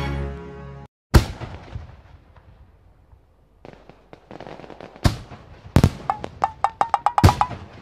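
Fireworks going off: a loud bang about a second in, then scattered pops and crackles that thicken into a quick run of bangs near the end, with a faint whistling tone among them. Background music ends in the first second.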